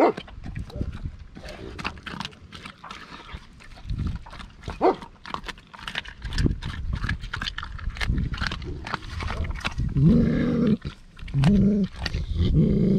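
A large dog eating raw meat scraps from a steel bowl, with wet chewing, crunching and sharp clicks of teeth and bowl. From about ten seconds in come three short, loud bursts of low growling.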